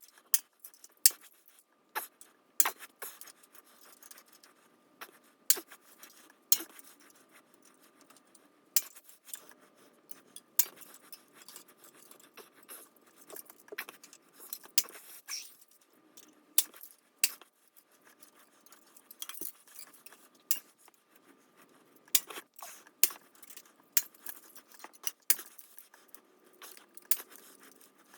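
Irregular sharp metallic clicks and clinks with light scraping: hand tools and small metal bicycle parts being handled during disassembly.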